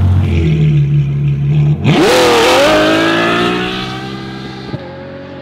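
Supercar launched from a standstill with a burnout: the engine is held at raised revs, stepping up about half a second in, then just before two seconds it revs up sharply with the tyres spinning under a loud hiss. The engine pitch keeps climbing as the car pulls away and fades.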